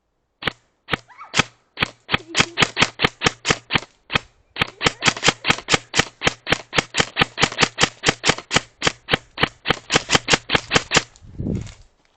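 Airsoft gun firing a rapid string of sharp shots, about five a second, with a short pause about four seconds in. A low thump follows near the end.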